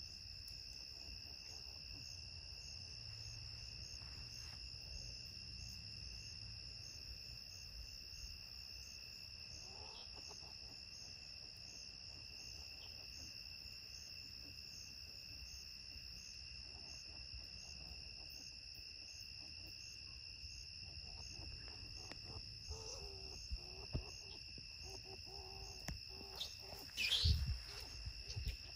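Steady chorus of night insects, crickets among them, with a pulsing high chirp. Near the end, a burst of louder, sudden scuffling sounds as two striped skunks squabble.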